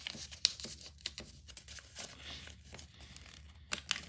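Sheet of paper being folded and creased by hand: a run of short crinkles and crackles, with a few sharper snaps.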